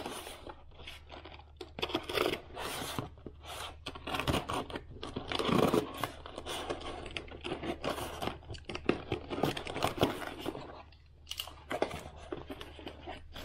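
Packing tape being slit with a utility knife and torn off a small cardboard box, a run of irregular scratching and ripping strokes, with the cardboard flaps scraping as they are pulled open.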